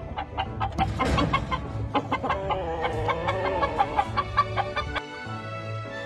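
Chickens clucking, rapid and uneven, over background music. The clucking stops about five seconds in, leaving only the music.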